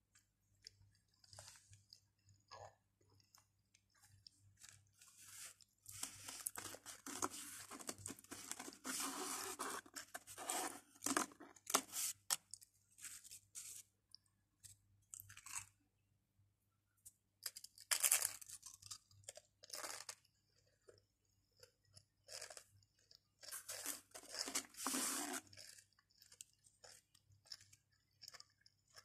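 Pringles potato crisps bitten and chewed close to the microphone: three spells of crunching with quieter chewing clicks between them.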